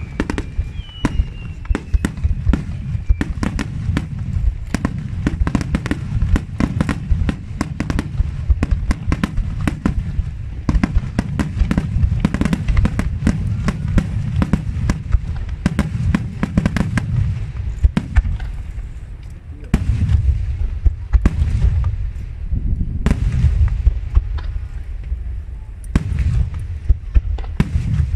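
Aerial firework shells bursting in rapid succession: deep booms overlap one another, with sharp cracks and crackle between them. There is a short lull about two-thirds of the way in.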